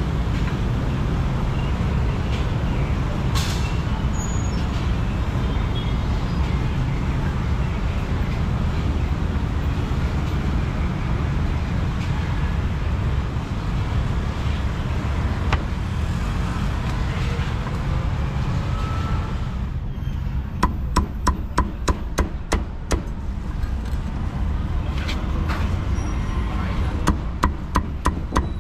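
Meat cleaver chopping roast pork on a thick round wooden chopping block: runs of quick sharp chops, about four a second, around twenty seconds in and again near the end. Steady street-traffic rumble underneath throughout.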